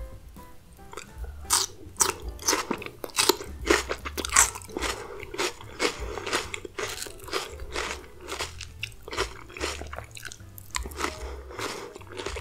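Crunching and chewing of raw onion strips in a creamy dressing: a dense run of crisp, wet crunches starting about a second in.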